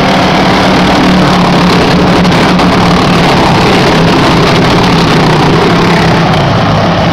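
A pack of racing go-kart engines running together as the karts pull away from the grid: loud and steady, without any big rise or fall in pitch.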